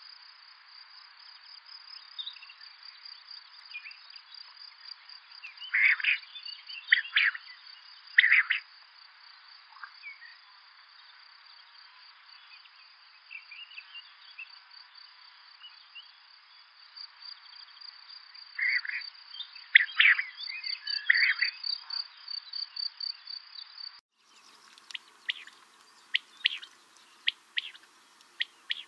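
Male common quail calling: loud short call phrases in two bouts of three, over a steady high-pitched cricket trill. Near the end the recording changes to a clearer one, with a quick series of short, sharp calls.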